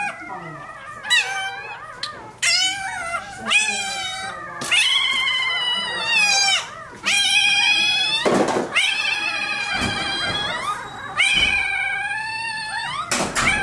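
Newborn Rottweiler puppy crying in a string of high-pitched, mewing squeals, one after another, each dropping in pitch, in distress while its tail is clamped and docked.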